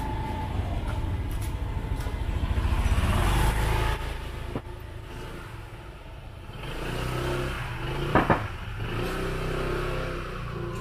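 A motorbike engine running close by, getting louder and dropping away sharply about four seconds in. A sharp clack near the end.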